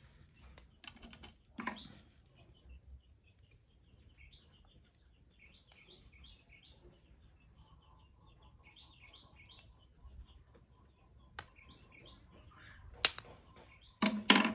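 Small birds chirping in repeated short calls throughout, with a few sharp clicks and knocks, the loudest near the end, as the caseback of a hand-wound Seiko watch is worked open.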